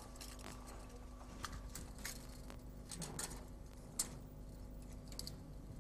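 Faint, irregular light clicks and ticks from a small hand-cranked dragon automaton as its handle is turned, its parts driven by a springy model-steam-engine drive belt; the sharpest click comes about four seconds in, over a faint steady hum.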